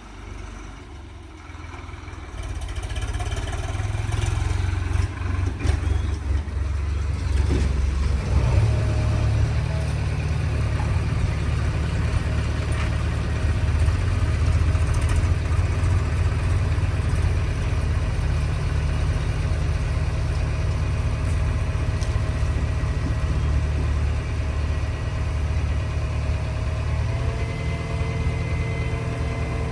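A diesel engine of heavy earthmoving machinery running with a low, steady rumble; it is quiet for the first couple of seconds, builds up, and then holds steady.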